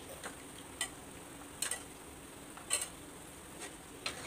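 A metal slotted spoon clinking against the side of a kadai of oil as gulab jamun balls are turned while they fry: about six light, sharp clicks at uneven intervals over a faint steady hiss.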